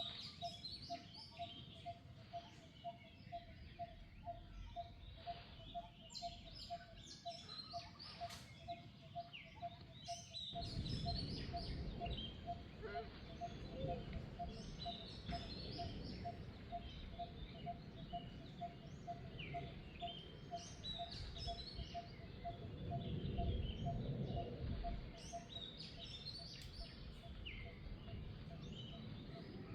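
Birds chirping, with one note repeating steadily about two and a half times a second throughout. A low rumbling noise comes in about ten seconds in.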